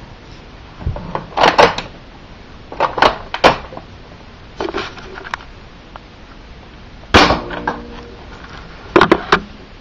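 Nerf Longshot dart blaster being handled and cocked: a series of short, sharp plastic clacks and clicks, spaced irregularly, the loudest about seven seconds in.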